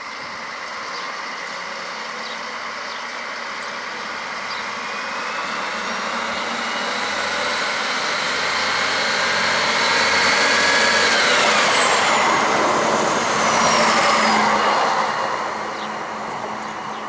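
DB class 650 (Stadler Regio-Shuttle RS1) diesel railcar approaching and passing close by. It grows steadily louder, and its high tones drop in pitch as it goes by. A wash of wheel-on-rail noise follows at the loudest point, then fades as it moves away.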